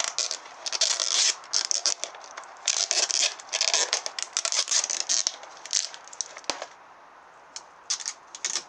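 Adhesive tape being pulled off the roll and pressed down onto a plastic toy boat, in a string of short ripping, crackling pulls. After about six seconds it thins out to a few faint clicks.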